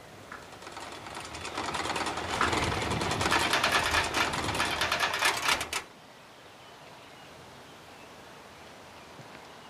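Wooden garden windmill spinning fast and clattering rapidly. The clatter builds up over about two seconds and cuts off suddenly about six seconds in.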